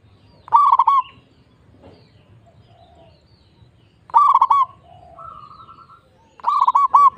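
A local zebra dove (perkutut) singing: three short phrases of quick, rolling coos, the last phrase the longest.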